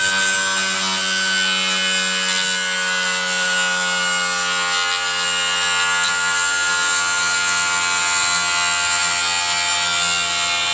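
Homemade pulse motor's rotor spinning at high speed with a steady whine, while an old piece of water pipe is pressed against it as a friction brake to test its torque. The rubbing adds a hiss, and the whine's pitch sags slightly under the load.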